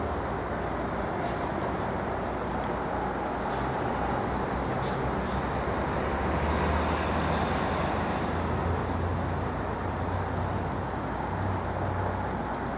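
City street traffic: a steady rumble of passing vehicles, with a heavy vehicle's engine hum swelling in the middle. A few short sharp ticks are heard in the first five seconds.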